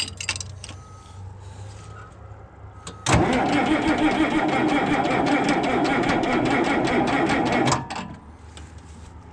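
John Deere 4020 tractor engine being cranked by its starter for about four and a half seconds, starting about three seconds in, with an even rhythm of compression strokes. It stops abruptly without the engine catching: a hard cold start that ends up needing a jump start and starting fluid.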